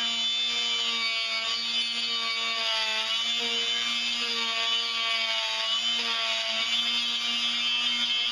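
Dremel Multi-Max MM40 oscillating multi-tool running with a rigid scraper blade, scraping dried paint off a wooden workbench: a steady buzzing hum whose pitch dips slightly a few times as the blade is pressed into the work.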